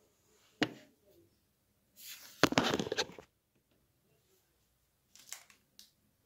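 Handling noises in a small room: a sharp knock, then about a second of rustling, then a few light clicks near the end.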